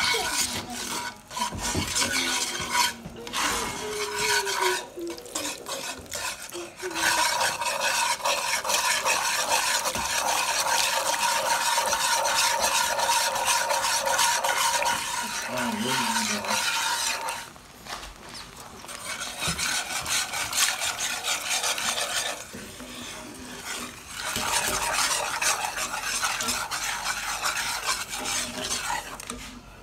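Metal wire whisk stirring and scraping fast around a cast-iron skillet, beating a butter-and-flour roux that turns into a thick creamy sauce. The whisking stops for a second or two a few times, longest around the middle.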